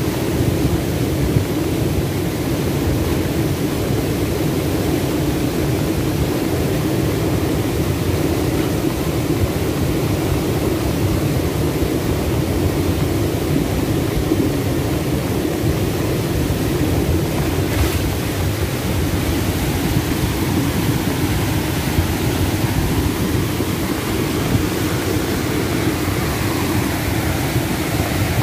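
Floodwater rushing down a swollen river: a loud, steady, deep rush of water.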